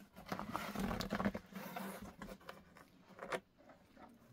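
Corrugated cardboard shipping box being opened by hand: its flaps folded back and the box handled with rustling and scraping, and one sharper knock about three seconds in.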